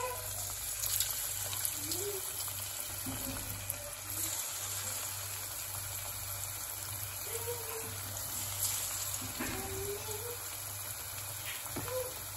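Chicken 65 pieces in a cornflour-and-egg batter deep-frying in hot oil in a steel kadai: a steady sizzle and bubbling, with a few sharp crackles.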